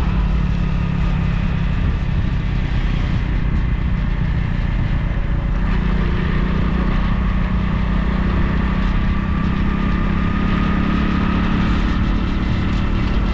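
Motorcycle running at a steady cruising speed, heard from the moving bike: a steady engine note under a dense low rumble. The engine note shifts slightly about six seconds in.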